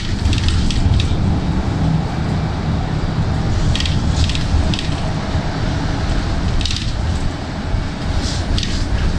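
Interior of a moving Mexico City Metrobús articulated bus: a loud, steady low rumble of the bus underway. Short high rattling bursts cut in several times: just after the start, around four seconds in, near seven seconds and around eight and a half seconds.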